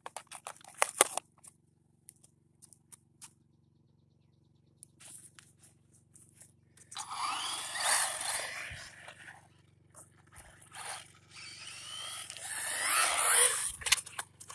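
Xinlehong Q901 1/16 RC monster truck's 5900kv brushless motor whining and rising in pitch as the truck accelerates on asphalt, with tyre noise, in two runs starting about seven and ten seconds in, the second one louder. At the start, a few clicks and knocks as the truck is handled.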